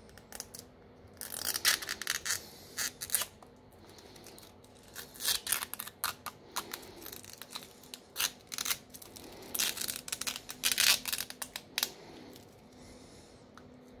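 Metal tweezers clicking and scraping against a smartphone's plastic inner frame and parts, in four bursts of quick sharp clicks with short pauses between.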